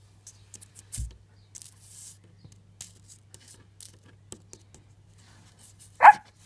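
Faint scattered clicks and scratches as a small dog moves about a smooth floor, a dull thump about a second in, then two short barks near the end.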